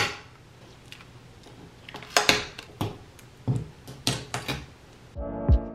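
Paper picture prints and stickers being handled and pressed onto a wall: a handful of short paper rustles and taps. Piano music comes in near the end.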